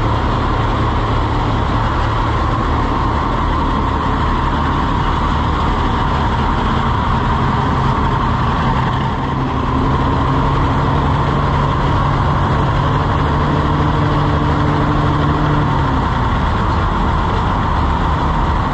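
Several old tractor engines idling together, a dense steady running sound. About halfway in a further steady hum joins for several seconds, then stops.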